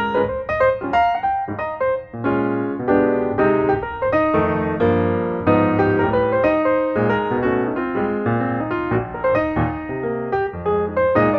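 Background piano music with quick successive notes.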